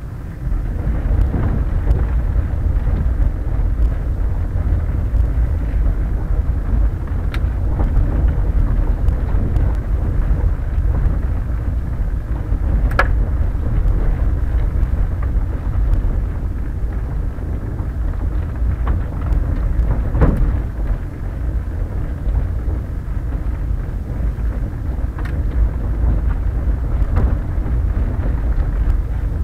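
Quest velomobile rolling over a rough, unpaved gravel road surface: a steady low rumble from the tyres and the vibrating body shell, with wind on the microphone. A few sharp knocks from jolts over the rough ground, the clearest near the middle.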